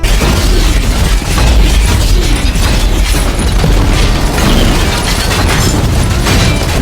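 Electronic explosion sound effect from a War Machine action figure's sound chip: a loud, continuous low rumble with dense crackling that cuts off just before the end.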